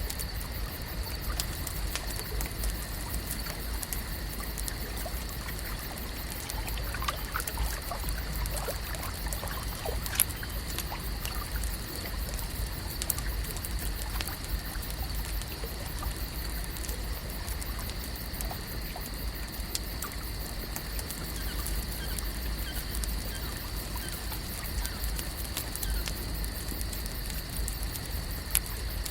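Lake ambience: water trickling and lapping over a steady bed of noise, dotted with many small sharp ticks, with a constant high-pitched hum and a low rumble beneath. A few faint short chirps come in around a third of the way through.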